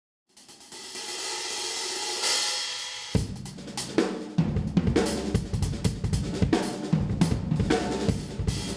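Drum kit playing: a swelling cymbal wash builds for the first few seconds, then a beat with bass drum, snare and hi-hat comes in about three seconds in.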